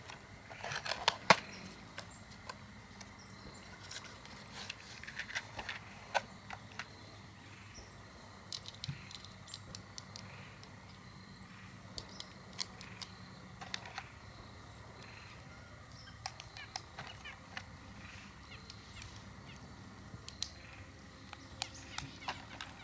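Scattered light clicks and rustles of small gear being handled, the sharpest about a second in.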